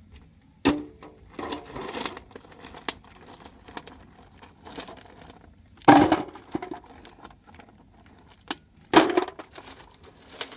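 Three loud clattering impacts, each ringing briefly, near the start, in the middle and near the end, with lighter clicks and rustling between them.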